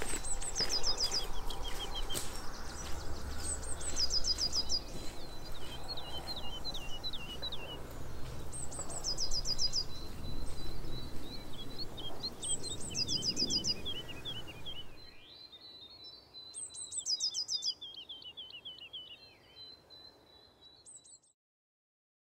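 Small songbirds singing: a short, high phrase of quick notes repeated every few seconds, with a lower run of chirps between, over a low outdoor rumble. The rumble drops away about two-thirds through, leaving the birds fainter, and the sound cuts to silence near the end.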